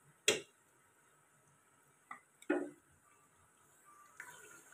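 Three sharp knocks of a utensil against a metal cooking pot, the loudest about two and a half seconds in. A faint steady hiss begins near the end.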